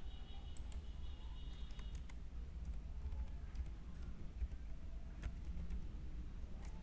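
Computer keyboard keys being typed, a scattered run of separate keystroke clicks, as a password is entered, over a steady low hum. A faint high whine sounds in the first two seconds.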